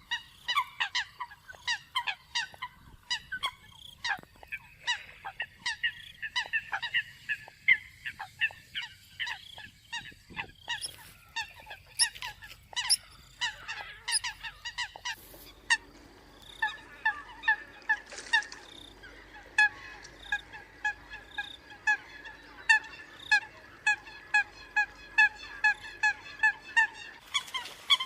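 Eurasian coots calling: rapid, repeated short honking notes from several birds. The calls become a more regular, evenly spaced series about halfway through.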